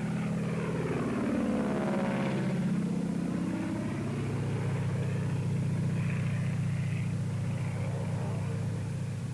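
The twin Allison V-12 engines of a P-38 Lightning fighter droning in flight. The note sweeps down in pitch over the first few seconds as the plane banks and turns, then holds steady.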